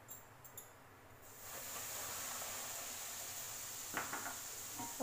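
Semolina frying in hot oil in an aluminium kadai: it starts to sizzle about a second in and settles into a steady hiss, with a light knock near the end.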